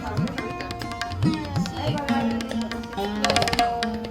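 Indian instrumental music with tabla-style hand drumming: the bass drum's strokes swoop upward in pitch, under held melodic tones.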